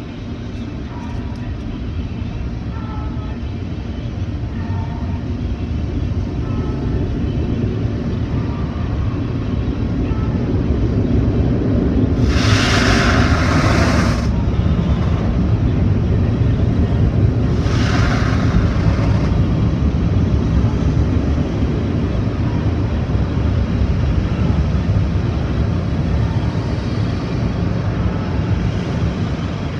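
Automatic tunnel car wash heard from inside the car: a steady low rumble of the wash machinery that grows louder over the first half, with two loud hissing blasts of high-pressure water spray striking the car, about twelve seconds in and again about six seconds later.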